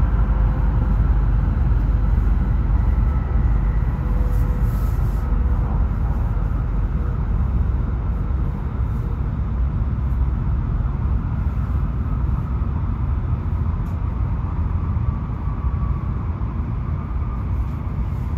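Running noise heard inside a Tohoku Shinkansen passenger car: a steady low rumble of wheels and track with air noise, growing a little quieter later on.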